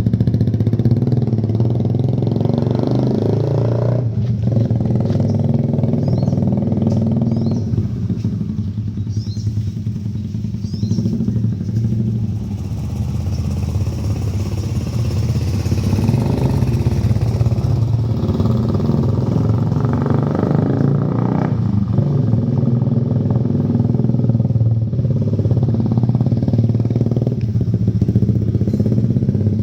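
First-generation Yamaha Vixion's 150 cc single-cylinder four-stroke engine running through an Akrapovic aftermarket exhaust, holding a fairly steady engine speed with only small changes.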